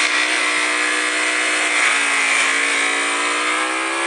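Ducati Panigale V4S's V4 engine pulling hard under acceleration, its pitch climbing. About two seconds in the pitch drops suddenly as it shifts up a gear, then climbs again.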